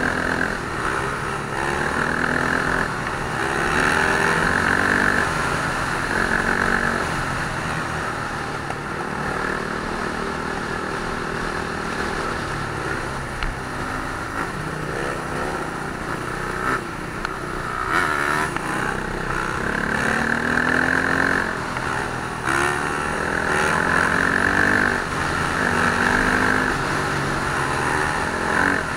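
Several motorcycle engines revving up and down and riding, their pitches rising and falling over one another.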